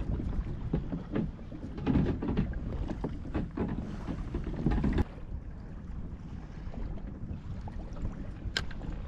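Water slapping and splashing against a plastic kayak hull under way, with wind buffeting the microphone and a few short knocks. Louder in the first half, dropping suddenly about five seconds in.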